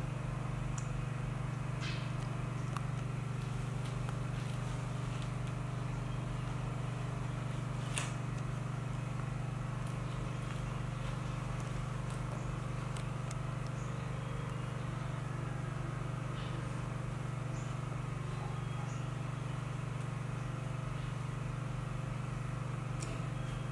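A steady low hum with an even level throughout, with a few faint, sharp ticks, the clearest about eight seconds in.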